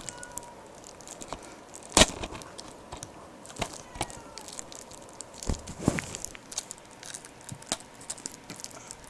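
Fingers picking at and crinkling the cellophane shrink-wrap on a DVD case, trying to tear it open: scattered crackles and small clicks, with one sharp click about two seconds in.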